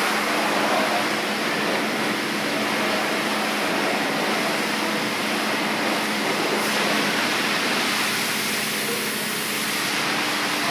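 Steady rushing background noise with a faint low hum underneath, unchanged throughout; typical of air handling or machinery in a garage bay.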